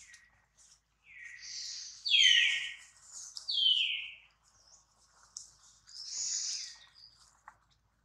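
Baby macaque crying: about four shrill squeals, several sliding down in pitch, the two in the middle loudest.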